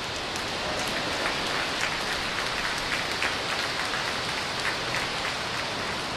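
Falcon 9 rocket's nine Merlin 1D first-stage engines at full thrust just after liftoff: a steady rushing noise with crackling throughout.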